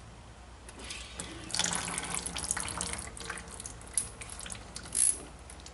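Brake fluid and air spitting and hissing out of the opened front brake caliper bleeder screw of a 2006 Ford Escape into a catch can, with a short louder spurt near the end. The sputtering air in the fluid shows the line is still being purged of air.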